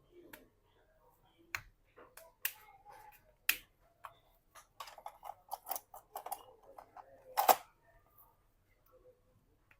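Sharp clicks and snaps, many in quick succession with the loudest about three-quarters of the way through: a smartphone's back-cover clips being pried loose with a tool.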